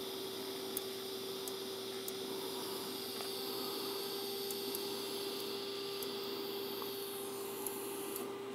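DC TIG welding arc on a titanium-to-stainless butt joint, a steady hiss with a few faint crackles over a steady hum; the hiss fades near the end as the arc is stopped.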